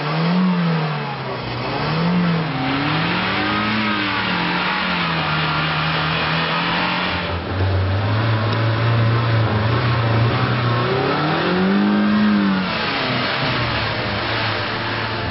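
Mazda 323F engine being revved in short blips, its pitch swinging up and down several times, settling into steady running for a few seconds, then one more long rev near the end.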